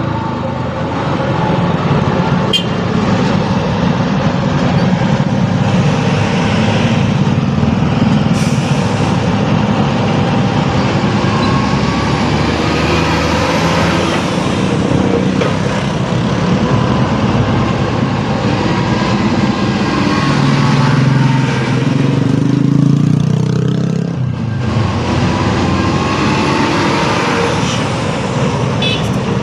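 Road traffic in a slow-moving jam: vehicle engines running steadily with road noise, and no sudden loud events.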